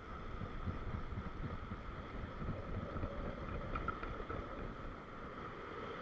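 Ocean swell surging and breaking in white water against a rock ledge, with wind rumbling on the microphone.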